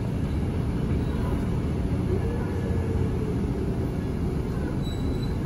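Steady low rumble of engine and road noise inside a moving Scania K310IB articulated city bus.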